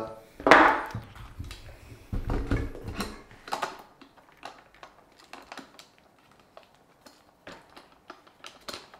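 Hands handling a mirrorless camera in a SmallRig metal cage: small clicks, taps and knocks of the cage, camera body and fittings as the rig is turned over, with a louder handling noise about half a second in and a burst of clicks a little after two seconds.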